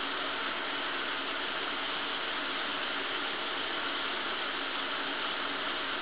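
Running shower: a steady, even hiss of water spray.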